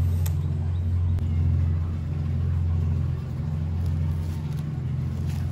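Steady low drone of a running engine or motor, holding an even pitch, with a few faint clicks near the start.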